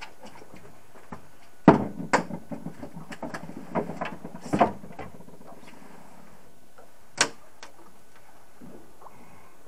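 Knocks and thumps on a fibreglass boat deck as a caught fish is landed and handled. A sharp knock comes about a second and a half in, followed by a run of smaller knocks and rattles for about three seconds, with another loud one among them. A single sharp knock comes near the end.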